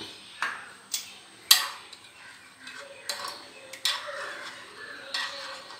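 A spoon clinking and knocking against a glass vessel a few separate times as honey is added to fresh ginger and shallot juice and stirred in, the sharpest clink about a second and a half in.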